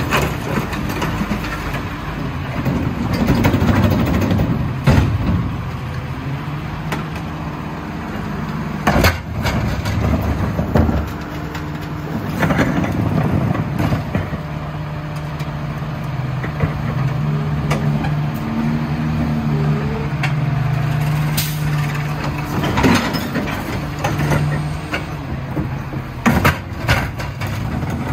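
Lodal EVO split-body garbage truck running with a steady engine drone, with loud bangs and clunks at intervals.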